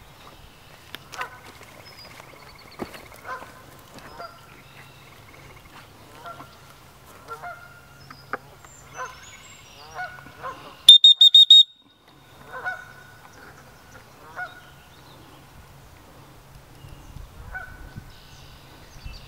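Geese honking repeatedly, on and off, across the water. About halfway through, a loud, shrill, rapidly pulsed high tone lasts under a second and is the loudest sound.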